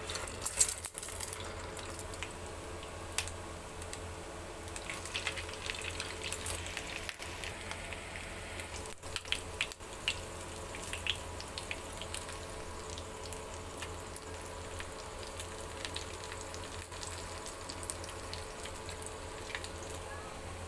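Beef shami kababs shallow-frying in hot oil in a nonstick pan: a steady sizzle with scattered crackles and pops, loudest about half a second in as a patty is laid into the oil. A low steady hum runs underneath.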